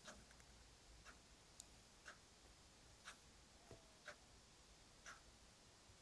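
Near silence: room tone with faint, evenly spaced ticks about once a second, like a clock ticking.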